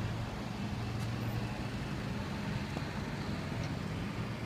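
Steady low engine hum over a continuous street rumble, from idling vehicles and traffic.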